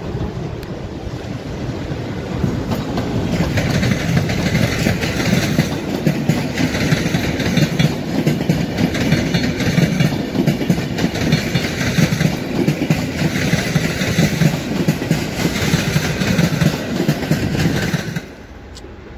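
Electric-hauled passenger train pulled by an EP09 locomotive, its coaches rolling past close by, with the wheels clattering over the rail joints in repeated spells over a steady rumble. The sound cuts off suddenly near the end.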